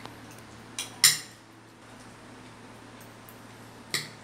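Metal cutlery clinking against ceramic plates during a meal: three sharp clinks, the loudest about a second in and another near the end.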